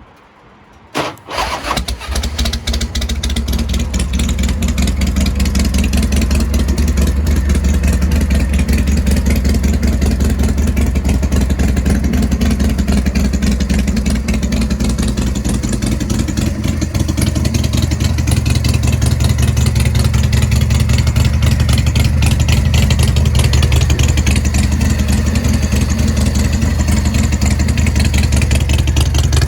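Big Dog Pitbull motorcycle's S&S 107 cubic-inch V-twin cranked by its starter about a second in, catching within a second or so and then idling steadily and loudly.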